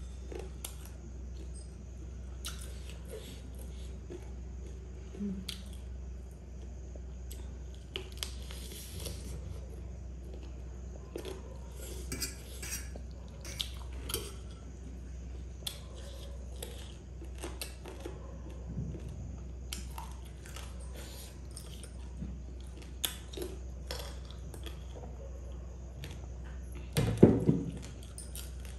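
A metal spoon clinking and scraping on a steel plate of noodles, with eating and chewing sounds between the scattered clicks. A louder thump comes near the end.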